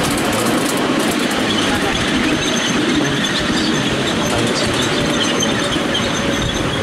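Ride-on miniature railway train hauled by a miniature BR class 31 locomotive, running along the track: a steady rumble of wheels on rail with light clicks.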